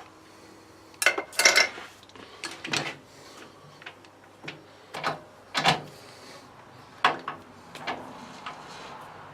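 A series of irregular knocks and clinks, the loudest cluster about a second in, as metal tools and parts are handled on a workbench.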